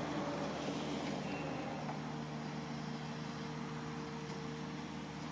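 Komatsu PC200 excavator's diesel engine and hydraulics running steadily as they turn its rotating screening bucket, a constant hum with a steady tone.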